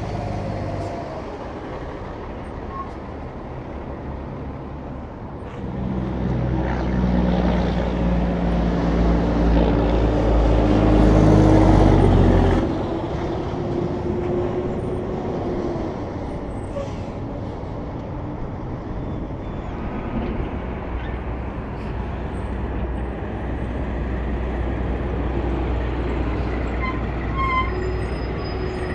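Semi trucks on a highway: steady road noise, with one big rig's diesel engine and tyres growing louder from about five seconds in, then cutting off suddenly about twelve seconds in.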